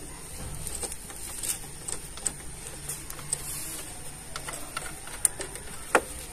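Scattered small metallic clicks and taps of a hand tool and parts on a motorcycle disc brake caliper as its nut is fitted and tightened, over a faint steady hum.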